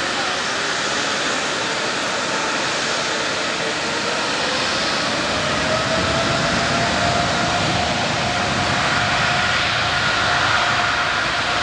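A Saudi Arabian Airlines Boeing 777's twin jet engines making a steady rushing noise, with a whine that rises in pitch a few seconds in and then holds steady as the engines spool up.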